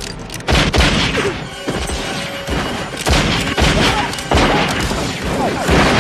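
Film gunfight: a rapid, irregular series of loud revolver shots, with several close together, over a film score.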